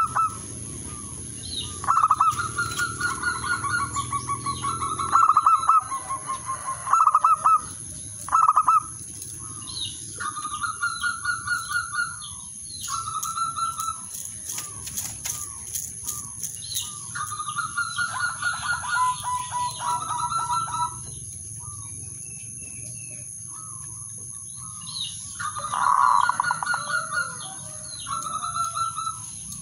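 Male zebra dove cooing: repeated phrases of rapid staccato notes that run into a rattling trill, coming every few seconds. A brief flutter of wings about halfway through.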